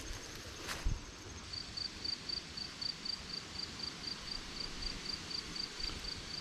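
An insect chirping in a steady, even rhythm of short high-pitched pulses, about four a second, taking over from a thin continuous high buzz about a second and a half in. One short thump about a second in.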